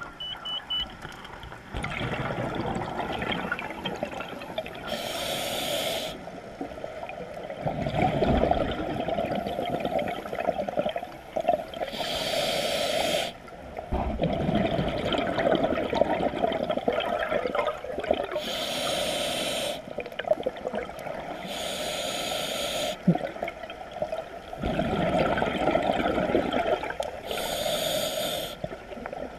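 Scuba regulator breathing underwater: five hissing inhalations through the regulator, each followed by a longer rumbling burst of exhaled bubbles, about one breath every five to six seconds.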